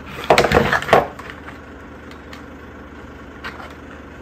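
About a second of clattering knocks near the start: a stiff Kydex holster and its belt clip being handled and knocked against a wooden workbench. After that only faint ticks of handling.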